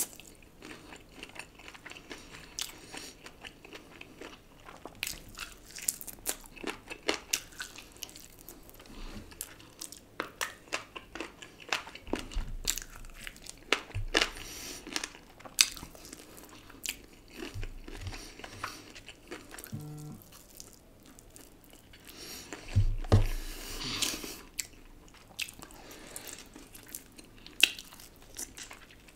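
A person eating crispy fried chicken by hand, with irregular crunchy bites and chewing throughout and a louder burst of crunching about three-quarters of the way through.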